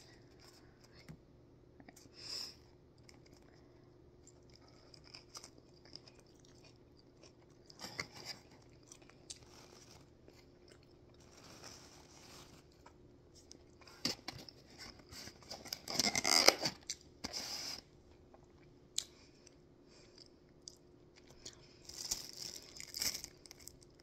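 Close-up eating sounds of a crispy breaded chicken sandwich being bitten and chewed: quiet chewing broken by scattered crunchy bursts, the loudest about two-thirds of the way through.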